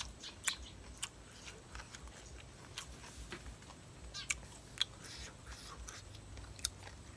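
Close-up chewing of a spicy seafood salad: wet mouth smacks and a scattering of sharp clicks, a few louder ones about half a second, four and a half, and six and a half seconds in.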